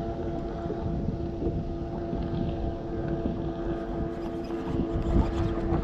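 Boat motor running with a steady hum, over a low rumble of wind on the microphone.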